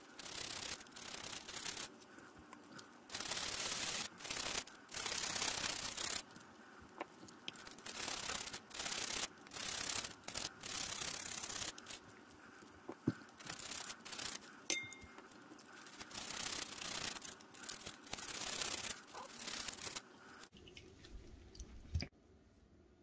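A toothbrush scrubbing small plastic puzzle pieces in soapy water, in repeated short bursts of brushing with brief pauses between them. There is a single soft knock near the end.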